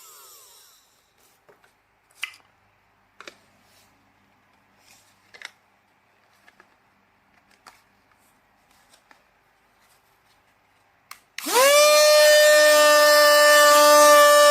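REDBUZZ 2-in-1 cordless mini car vacuum: its motor winds down and fades in the first second, followed by scattered light clicks and knocks of handling. About eleven seconds in the motor switches on again, spinning up quickly to a loud, steady, high whine.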